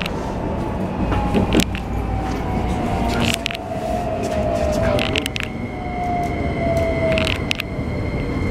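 Keikyu New 1000 series train's Toyo hybrid SiC VVVF inverter and traction motors whining with a slowly falling pitch as the train decelerates on approach to a station, over rumbling running noise and scattered clicks from the wheels and rails. A steady high tone joins about five seconds in.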